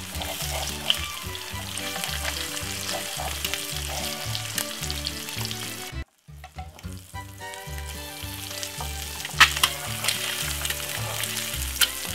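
Eggs frying in bacon fat in a non-stick frying pan, a steady sizzle full of small crackles and pops, with a spatula working against the pan. The sound drops out for a moment about halfway through, and there is one sharp pop or tap about nine seconds in.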